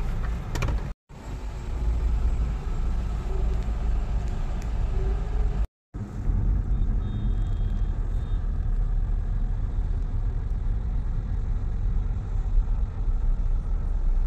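Low, steady road and engine rumble inside the cabin of a moving MG car. It cuts to silence twice, briefly: about a second in and just before six seconds.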